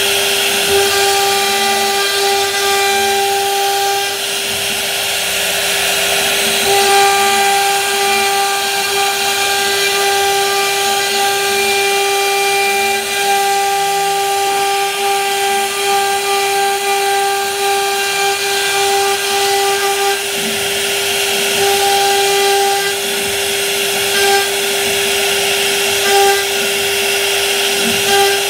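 CNC router spindle running at a steady high whine while its bit cuts grooves through a wooden panel, with the rushing noise of the cut underneath. The whine's overtones come and go as the cutting load changes.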